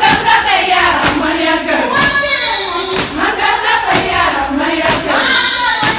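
Group of women singing a Shilluk dance song together over a steady beat of sharp strikes, about two a second.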